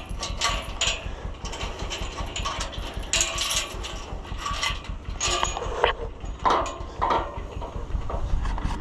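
A farm tractor running, with irregular metallic clanks and rattles over a low steady engine rumble.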